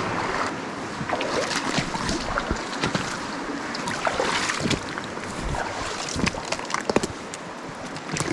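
Rushing water of a rocky mountain brook, with many scattered sharp clicks and knocks over it.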